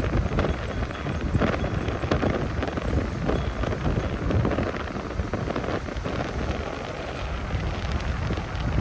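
Strong gusty wind buffeting the microphone with a heavy low rumble, over the steady hiss of rough surf breaking on the beach.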